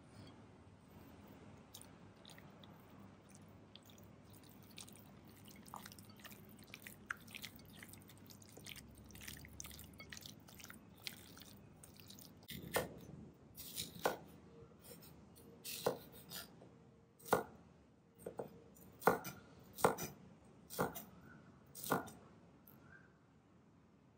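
Bare hand squelching cubed pork in a marinade of egg, flour and cornstarch in a glass bowl, a soft wet sound with small clicks. About halfway through it gives way to a chef's knife chopping green bell pepper on a bamboo cutting board: about ten sharp knocks, roughly one a second.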